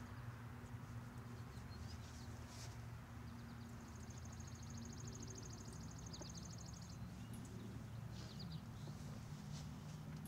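Birds chirping outdoors, with a long, fast, high trill from about four to seven seconds in, over a steady low hum.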